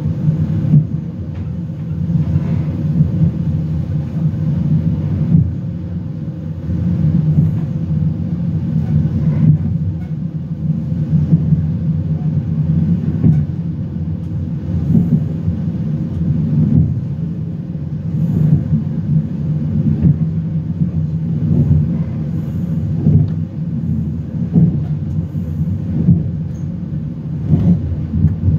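Talgo passenger train rolling along, heard from inside the carriage: a steady low rumble with faint, irregular knocks from the running gear.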